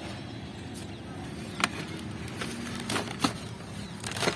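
Steady low background rumble, with three sharp clicks, about one and a half, three and a quarter and four and a quarter seconds in, as fenugreek plants are handled in their grow bag.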